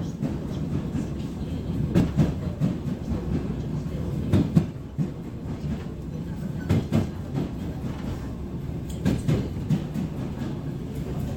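ER9M electric train's wheels knocking over rail joints in pairs of clacks, one pair about every two seconds, over the steady low rumble of the train running.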